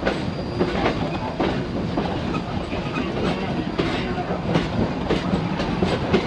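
Open railroad car rolling along the track behind Pennsylvania Railroad No.643 steam locomotive: a steady rumble of wheels on rail, with irregular clicks and clacks.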